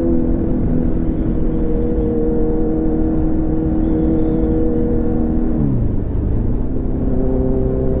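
Kawasaki Z900's inline-four engine running at steady cruising revs while riding. A little before six seconds the revs drop quickly, and the engine settles at a lower steady pitch.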